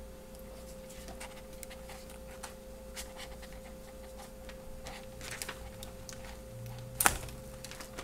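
Handling noise of a laptop LCD panel being lifted and fitted into the display lid: scattered light clicks and taps, with one sharper click about seven seconds in.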